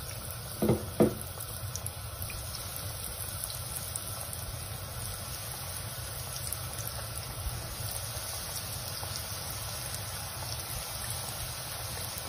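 Breadcrumb-coated potato-and-egg kebabs shallow-frying in hot oil in a pan: a steady sizzle with fine crackling. Two short knocks come about a second in.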